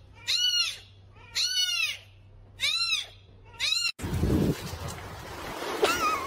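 A cat meowing four times, about once a second, each high meow rising and then falling in pitch. About four seconds in the sound cuts to a noisier stretch with a low thump and rustling, and near the end comes a wavering animal cry.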